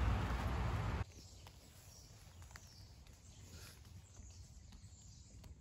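Wet forest outdoors: a steady rushing noise, like rain or wind on the microphone, cuts off abruptly about a second in. It is followed by quiet woodland ambience with a few faint ticks and faint short high chirps.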